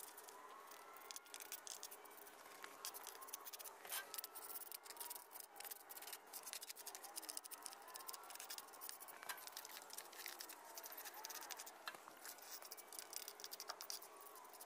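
Gloved hand patting and smoothing wet concrete: a faint, busy run of small scrapes and clicks.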